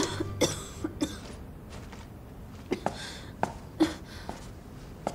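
A woman coughing in short, scattered fits during an asthma attack.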